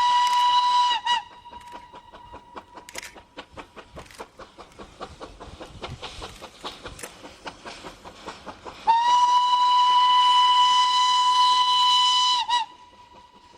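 Steam locomotive whistle blowing one long steady blast, which cuts off with two quick dips about a second in. A fast, even rhythm of the running locomotive follows. Near the end a second long blast of about three and a half seconds cuts off the same way.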